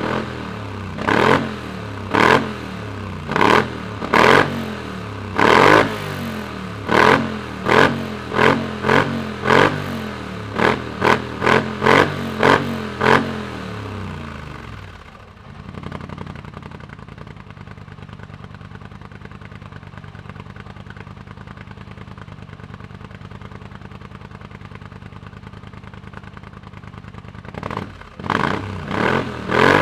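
Polaris Sportsman 850 XP ATV's twin-cylinder engine, running through a custom aftermarket exhaust, is revved in short repeated throttle blips, roughly one a second and quicker towards the middle. About halfway through it drops to a steady idle. Near the end the quick revs start again.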